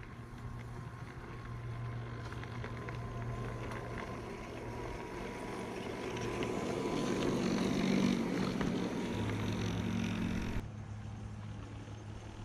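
A 1:24 scale, 45 mm gauge model electric tram runs along its track with a steady whine from its motor and gearbox and light clicks. It grows louder as it nears and passes, then drops suddenly about ten seconds in. The gearbox noise comes from its lubricating grease having deteriorated, as the owner later found.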